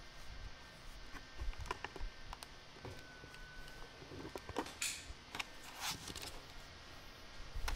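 Faint scattered clicks and taps with two brief rustles about five and six seconds in: handling noise from a moving handheld camera and small knocks on the sink counter.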